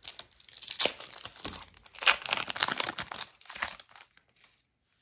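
Foil Pokémon TCG booster pack wrapper being crinkled and torn open, a dense crackling that stops about four seconds in.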